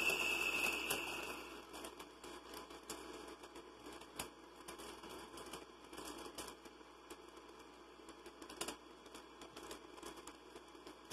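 Air drawn through the valve of a plastic vaporizer balloon bag, a steady hiss for about the first second and a half, then the thin plastic bag crinkling, with small clicks as the valve and mouthpiece are handled.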